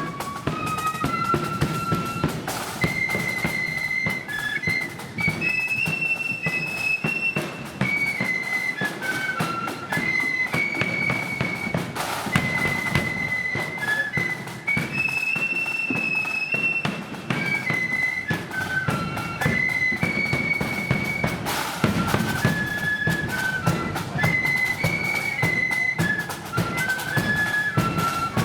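Marching flute band playing a tune: flutes carry a high melody in unison, repeating the same phrase about every ten seconds, over snare and bass drums.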